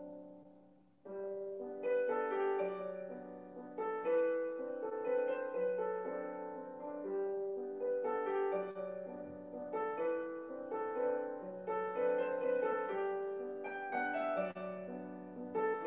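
Piano music playing steadily. A passage fades down and a new one starts abruptly about a second in.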